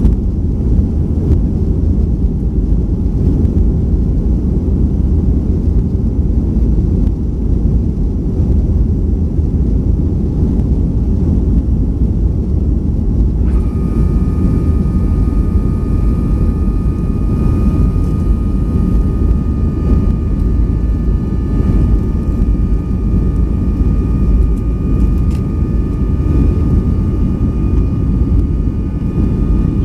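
Cabin noise of a Boeing 737-500 climbing out after takeoff, heard from a seat over the wing: the steady low roar of its CFM56-3 engines and the rush of air. About halfway through, a set of steady high whining tones comes in and holds until near the end, where it slides down in pitch and stops.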